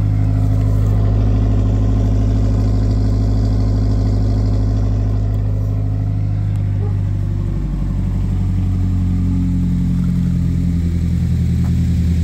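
2022 Subaru WRX's turbocharged 2.4-litre flat-four idling through an aftermarket quad-tip exhaust, a steady low drone. The engine has already dropped from its high cold-start idle and quieted down.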